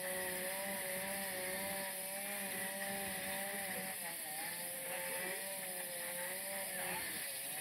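A small engine running steadily at high speed, its pitch wavering slightly up and down.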